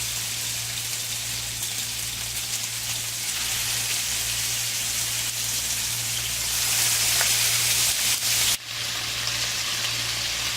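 Egg-white-coated chicken shashlik skewers frying in hot oil in a pan, a steady sizzle. It grows louder about seven seconds in and drops out for a moment near the end.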